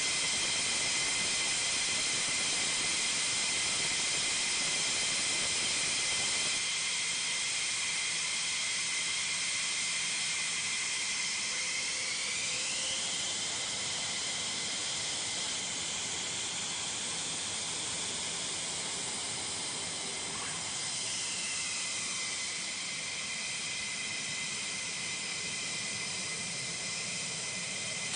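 F-15E Strike Eagle twin jet engines running on the ramp: a steady high whine over a loud hiss. About halfway through the whine sweeps up in pitch, then drops back down later on.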